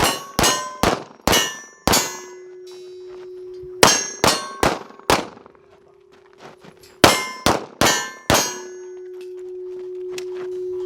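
Rapid pistol shots in strings of four or five, about two a second, each with the metallic clang and ring of a struck steel target. A steady ringing tone carries through the pauses between strings.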